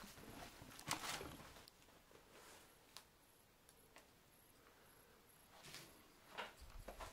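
Near silence with a few faint rustles and clicks scattered through it. The loudest rustles come about a second in and again near the end.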